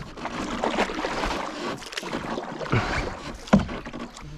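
Canoe paddle strokes: the blade swirling and splashing through the water, with a sharp knock about three and a half seconds in.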